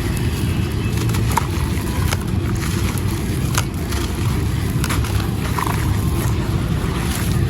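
Gritty stone and sand-cement chunks crumbling in water: a constant low rumble with scattered sharp crackles and clicks.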